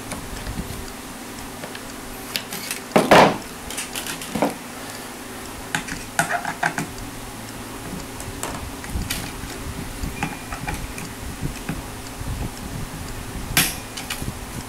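Scattered clicks and light metallic clatter as guitar strings, tools and the Floyd Rose bridge hardware of an Ibanez S520 are handled during re-stringing, with two louder knocks, one about three seconds in and one near the end. A steady electric fan hum runs underneath.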